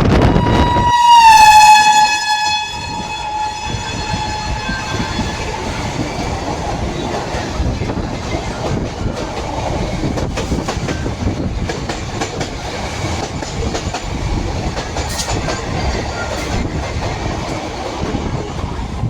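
An express train passes at full speed, sounding its horn. The horn's single note drops in pitch about a second in as the train goes by, then fades into a long steady rush of coaches with clattering wheels over the rail joints.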